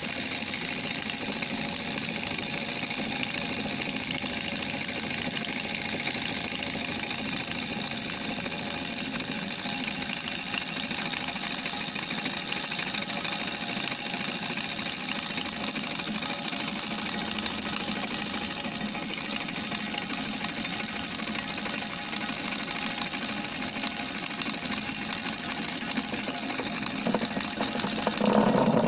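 Homemade electromagnetic single-cylinder model engine running steadily at speed, its piston and flywheel going fast. The sound cuts in suddenly at the very start.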